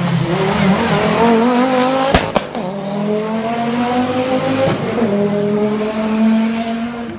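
Rally car engine accelerating hard through the gears, its pitch climbing in each gear, with a sharp crack at each of two upshifts. It fades near the end.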